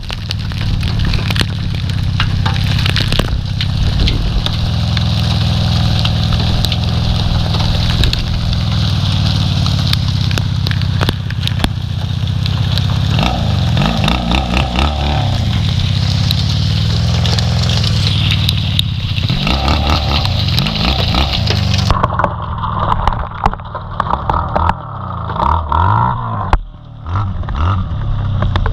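Honda Magna VF700 V4 motorcycle riding at speed, its engine rumble under a steady rush of wind over the microphone, with revs rising and falling twice. About three-quarters of the way through the rushing cuts off abruptly and the sound turns duller.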